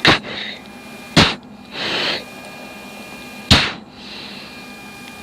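F-16 pilot's anti-G straining breathing into the oxygen mask microphone during a high-G turn: three sharp puffs of breath, with a longer hissing breath about two seconds in, over the steady hum of the cockpit.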